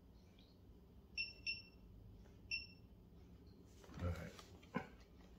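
Hobby battery charger beeping: three short electronic beeps, two close together about a second in and one more a second later, as the charge setting is chosen. Rustling and a click of handling near the end.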